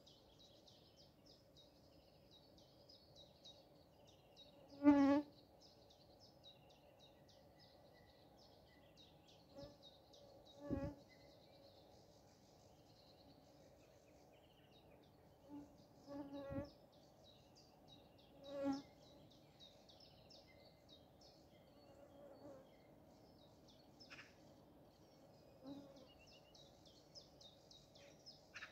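A flying insect buzzing close to the microphone in several short passes, the loudest about five seconds in, over a faint steady high chirping in the background.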